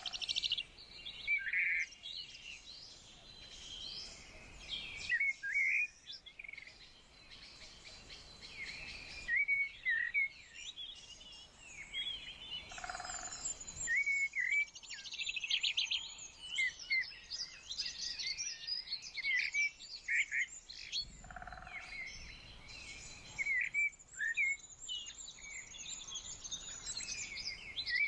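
Several small birds chirping and singing over one another in short, quick notes, with a fast buzzy trill about halfway through.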